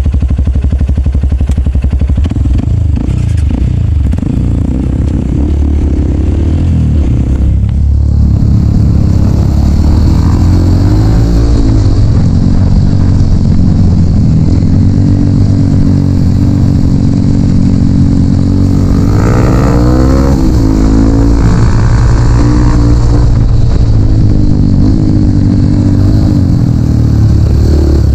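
Dirt bike engine running under throttle, its pitch rising and falling again and again as the rider accelerates and backs off.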